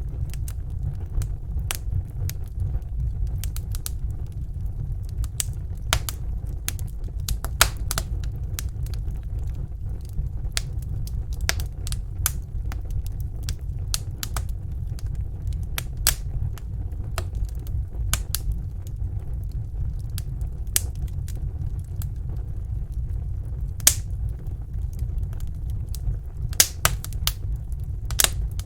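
Campfire crackling: wood snapping and popping in irregular sharp cracks over a steady low rumble.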